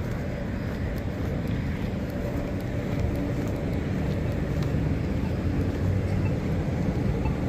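Road traffic passing at a street intersection: a steady rumble of cars and tyres, growing a little louder partway through.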